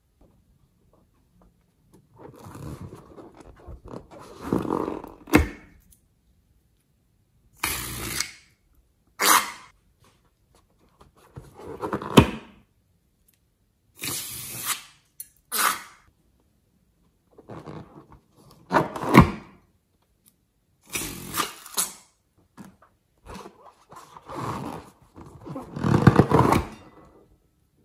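Scissors snipping open liquid-filled rubber balloons and the coloured slime mix squeezed out into a glass bowl. The sound is a string of separate bursts of rubbing and squishing, some ending in a sharp snip, with short pauses between them.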